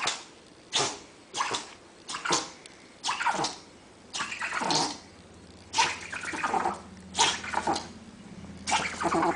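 An animal making a series of short, noisy calls, about one a second, some falling in pitch.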